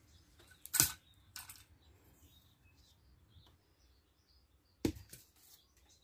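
Two sharp clicks, about four seconds apart, each followed by a few lighter ticks, from handling the sticks and metal frame of a homemade bird trap. Faint bird chirps come in between.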